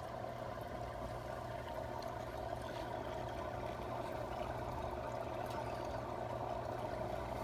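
Aquarium filtration equipment running steadily: a constant low hum under an even trickle of moving water.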